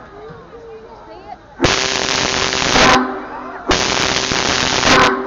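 Big Boy 4014 steam locomotive's whistle blowing two long, very loud blasts with heavy steam hiss, the first starting about a second and a half in, the second just past the middle. Crowd voices are heard before the first blast.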